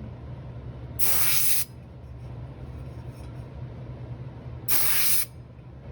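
Paasche airbrush sprayed in two short bursts of about half a second each, one about a second in and one near the end, hissing at high air pressure (around 80 psi) to spatter ink outward. A steady low hum runs underneath.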